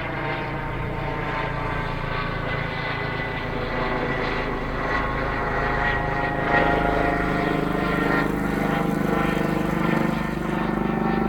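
Medevac helicopter flying by on its approach to land: a steady rotor and engine sound that grows slowly louder, with a faint regular beat from the rotor near the end.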